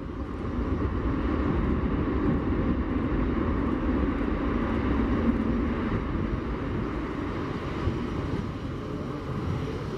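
Jet engine noise from a Boeing C-17 Globemaster III's four Pratt & Whitney F117 turbofans running at taxi power as the aircraft turns on the runway. It is a steady, low rumbling noise that swells about a second in and then holds.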